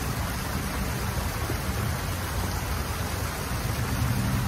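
Fountain water jets splashing steadily into a basin, with a low rumble underneath.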